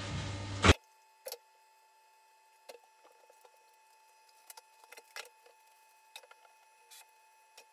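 A steady rushing noise with a low hum cuts off abruptly with a sharp click under a second in. Then come faint, scattered light knocks and clicks of toiletry bottles and small items being picked up and set down on a tiled bathroom shelf.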